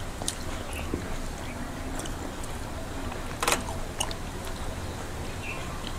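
Eating sounds: chewing and fingers mixing soft khichuri on steel plates, with a few small sharp clicks, the loudest about three and a half seconds in.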